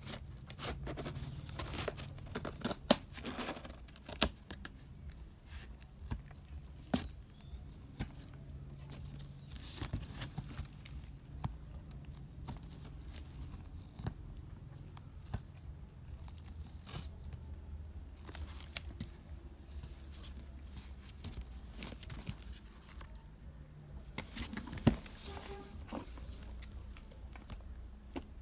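Cats clawing and tearing at a cardboard box from inside it: an irregular run of sharp scrapes, rips and clicks on the cardboard, loudest a few seconds in and again near the end.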